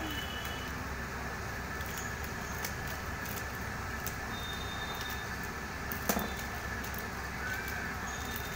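A plastic refill sachet being cut open with scissors and handled: a few soft clicks and crinkles, with one sharper snip or knock about six seconds in, over a steady noisy hum in the background.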